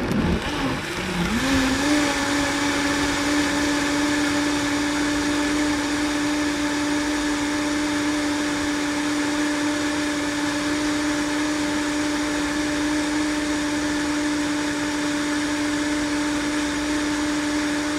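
Countertop blender blending a smoothie of ice, leafy greens and chopped fruit and vegetables. The motor rises in pitch about a second in as it spins up, then runs at a steady high speed.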